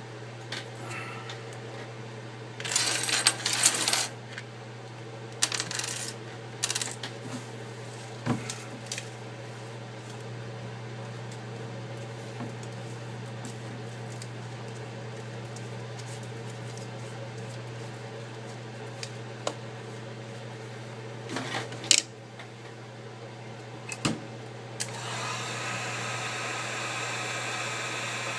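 Small hard tools clicking and scraping against the iPad's glass and frame in scattered short bursts while the glass is being pried off. About 25 seconds in, a heat gun switches on and blows steadily. A low steady hum runs underneath throughout.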